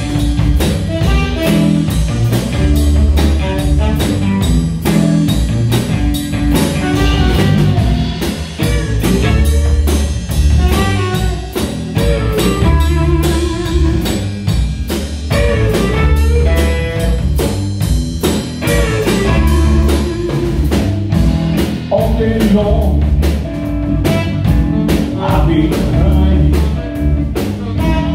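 Live blues band playing an instrumental passage: electric guitar, saxophone and a Pearl drum kit keeping a steady beat over a repeating low bass line.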